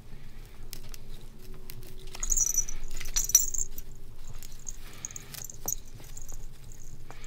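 Hands tying jute twine on a wooden star ornament among spruce branches: rustling twine and needles with small clicks, and light metallic jingles from the ornament's little bell, loudest about two to three and a half seconds in and again briefly near the six-second mark.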